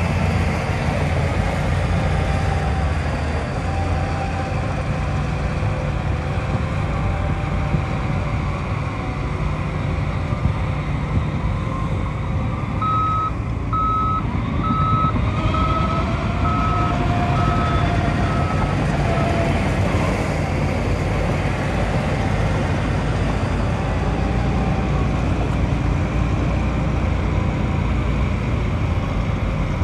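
Diesel engine of heavy earthmoving machinery running steadily under work, with a reversing alarm beeping in a string of short, evenly spaced, same-pitched beeps for about six seconds in the middle.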